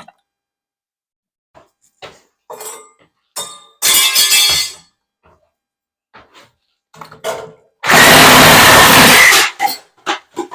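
A handheld power tool run in two short bursts, the second longer, with small knocks and clicks of handling between them.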